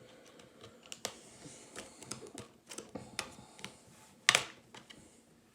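Light plastic clicks and taps from handling disc cases and discs, with one sharper snap about four seconds in.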